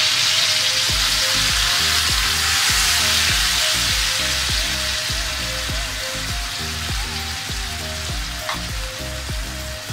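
Finely chopped tomatoes frying in hot butter and oil in a frying pan, a loud, steady sizzle as they are stirred with a spatula. The sizzle is strongest in the first half and eases slightly after about six seconds, with faint background music underneath.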